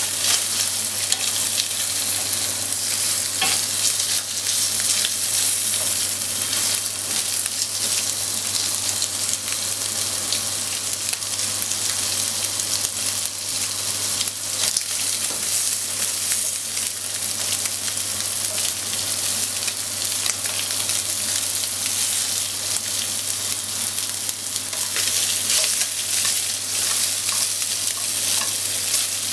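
Salmon pieces sizzling steadily in hot oil in a nonstick frying pan. Chopsticks and a wooden spatula turning and scraping them make light clicks through the hiss.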